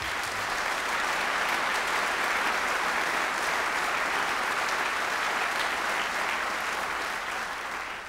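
Audience applauding steadily in a large hall, dying away near the end.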